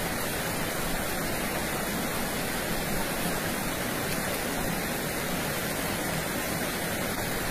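Shallow river water rushing steadily over rocks in a riffle.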